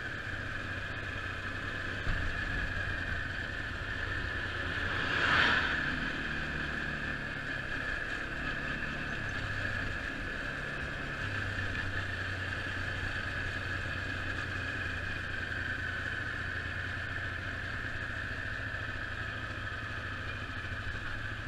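Rental quad bike's engine running steadily while riding, heard from the handlebars, its low note shifting partway through. A brief louder rush of noise swells and fades about five seconds in.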